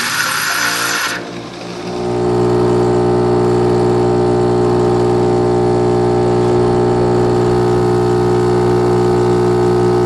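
Philips 5400 LatteGo espresso machine brewing a cappuccino. A short hiss as the milk froth finishes cuts off about a second in. Then the machine's pump runs with a steady hum as the coffee pours.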